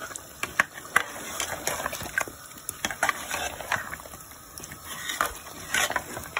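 Metal ladle stirring potatoes and meat in a steel cooking pot: irregular clinks and scrapes against the pot's sides and bottom.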